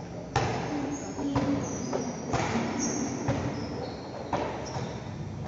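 Basketball game sounds in a gym hall: sharp bounces of the ball about once a second, with short high squeaks over a general echoing hall noise.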